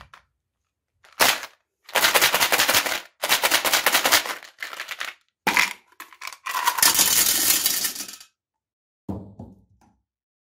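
Mentos gum pellets rattling in a plastic bottle and pouring out into a ceramic toilet bowl. The rapid clattering comes in several bursts of one to two seconds with short gaps between them, and a softer, lower rattle comes near the end.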